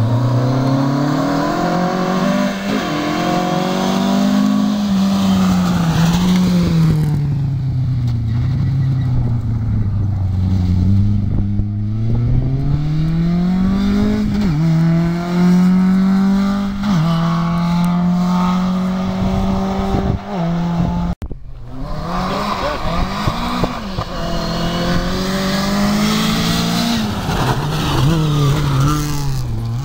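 Rally cars' engines revving hard as they come through a gravel special stage, the pitch climbing and then dropping back at each gear change. The sound breaks off abruptly about two-thirds of the way in, and another car's engine follows.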